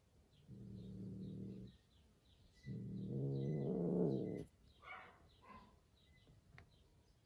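Adult cat growling low, twice, the second growl longer and louder; two short higher calls follow.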